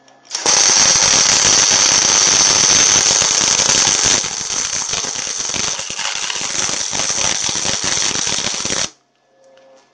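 Gasless flux-core MIG welding arc crackling and spattering steadily as it lays a steel bead, run hot at power 4 of 6 with 80% wire feed. It starts about half a second in, gets a little quieter after about four seconds, and cuts off suddenly near the end.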